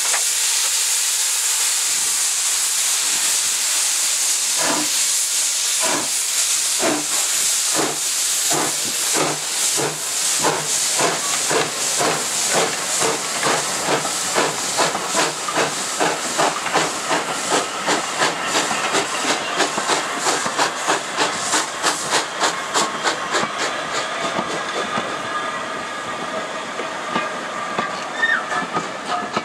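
LBSCR E4 0-6-2T steam tank locomotive hissing steam, then starting its train: slow exhaust chuffs begin about four seconds in and quicken steadily as it pulls away. Near the end the chuffs fade and the carriages roll past.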